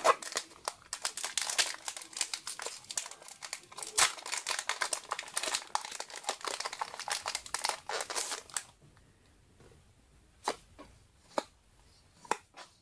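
Foil booster pack wrapper crinkling and tearing open, a dense crackle for about eight seconds, then a few separate soft clicks of cards being handled.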